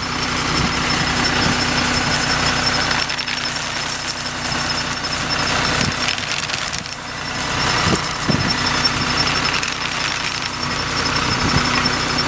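Tractor engine running steadily under load, with the dense whirring of a vineyard sucker remover's spinning rubber flails beating against the vine trunks, and a thin high whine running through it.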